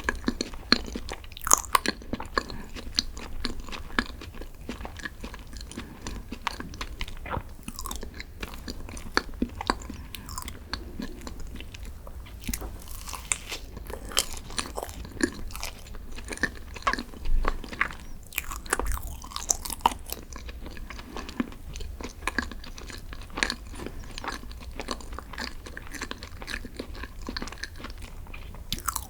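Close-miked eating of green tea desserts: chewing and biting with many small, irregular crunches and crackles.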